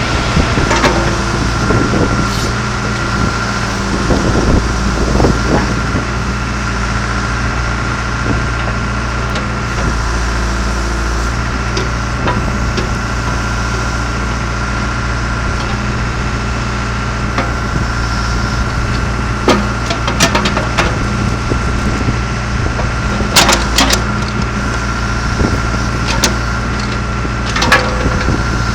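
John Deere 310G backhoe loader's diesel engine running steadily with a constant high whine. Scattered sharp knocks and clanks sound over it, the loudest near the end.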